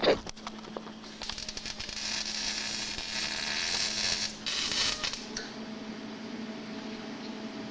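Electric welding arc crackling and hissing as a car's oil pan is welded, starting about a second in and stopping a little after five seconds. A sharp knock comes right at the start.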